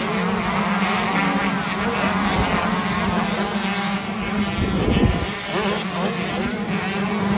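A pack of 125cc two-stroke motocross bikes racing, many engines buzzing and revving over one another. About five seconds in, one bike revs up sharply, rising in pitch, and is the loudest moment.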